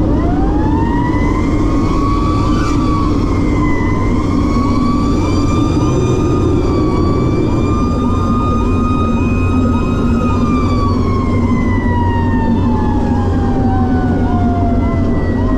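Fire engine siren winding up right at the start, holding a high wail, then falling away slowly in pitch through the last third. A second siren tone chirps about twice a second underneath, over the steady drone of the truck on the road.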